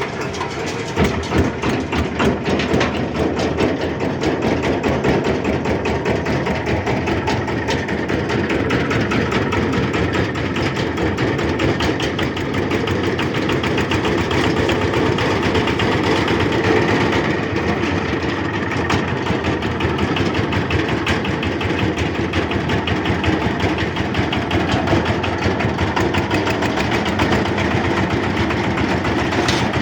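Tong Fung 185 single-cylinder diesel engine running steadily with a fast, even chugging.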